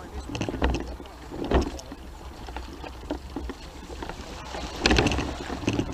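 Boots and a hand-pushed rescue trailer's wheels sloshing through shallow floodwater on a muddy track, in irregular splashes, the loudest about a second and a half in and near the end. Wind rumbles on the microphone underneath.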